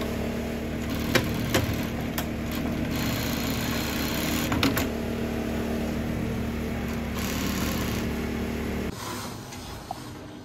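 Industrial post-bed sewing machine running steadily while stitching leather sandal straps, with a few sharp clicks in the first five seconds. The machine's hum cuts off suddenly about nine seconds in.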